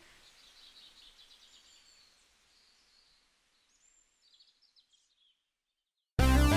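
Faint outdoor ambience with birds chirping, fading out to near silence. About six seconds in, a loud synth-keyboard music jingle cuts in suddenly.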